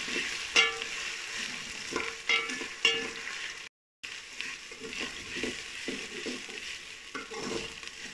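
Chopped onions and ginger-garlic paste sizzling in hot oil in a metal pot, with a metal ladle stirring and scraping against the pot several times. The sound cuts out briefly a little past halfway.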